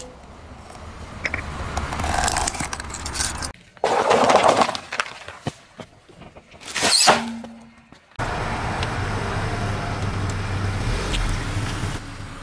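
Car tyres slowly rolling over and crushing objects on asphalt, with the car's engine running. The sound comes in short cut clips of crunching and crinkling, the loudest crackle about seven seconds in, and ends on a steady low engine hum.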